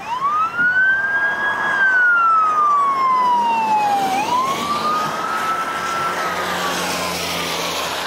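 Police car siren wailing, its pitch sweeping up and slowly down about every four seconds as the car passes on the wet highway, the second rise peaking a little lower as it moves away. Tyres hiss on the wet road beneath it.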